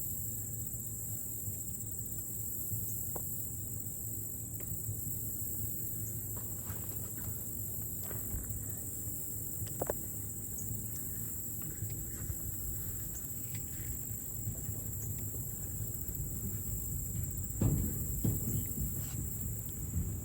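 A steady, high-pitched chorus of insects, with light footsteps on the path and a few low thumps near the end.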